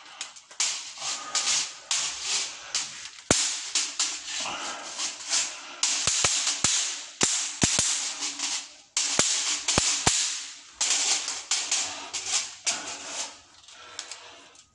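Rustling and scraping as a hand-held tool is worked about, broken by about ten sharp cracks or snaps, some in quick pairs, mostly in the middle stretch.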